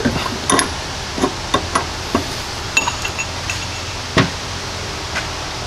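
Scattered metal clinks and knocks from a steel C-frame ball joint press and its adapter cups being fitted around an upper ball joint, with one louder knock about four seconds in.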